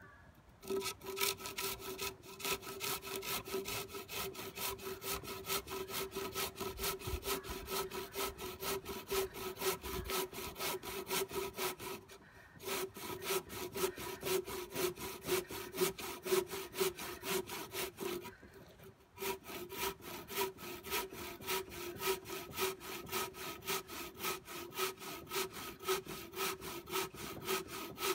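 Hand saw cutting through a pressure-treated board in quick, even back-and-forth strokes, with a steady ringing tone from the blade under the strokes. The sawing stops briefly twice, once just under halfway through and once about two thirds of the way through.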